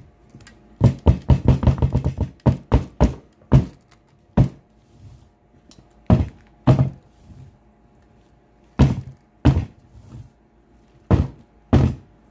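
A metal flower-shaped muffin pan full of cake batter being tapped on the countertop to settle the batter: a quick run of about eight knocks in the first few seconds, then single knocks at irregular intervals.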